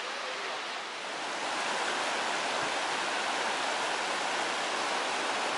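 Rushing water of Yosemite Creek tumbling over boulders below Lower Yosemite Fall: a steady hiss of falling and flowing water that grows louder about a second and a half in.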